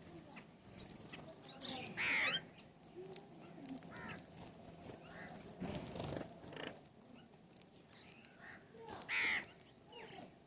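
Birds calling at a feeder: two loud, short calls, one about two seconds in and one near the end, with quieter calls in between.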